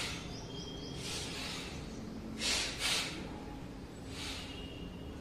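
Forceful breathing-exercise breaths, short hissing rushes of air in and out. There is a softer one about a second in, a strong close pair about halfway through, and a weaker one near the end.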